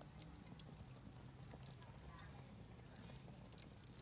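Faint wood campfire crackling: scattered small pops and snaps, none loud.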